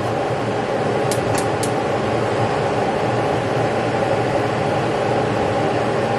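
Gas range's spark igniter ticking three times in quick succession about a second in as a burner is lit, over a steady rushing noise.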